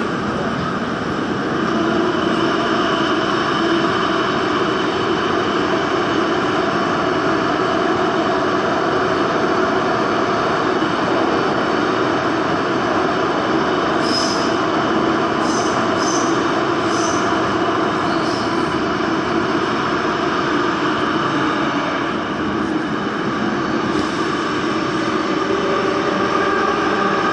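Daejeon Metro Line 1 train running through a tunnel: steady rumble of wheels on rail with a continuous droning hum. About halfway through come a few short, high-pitched wheel squeals.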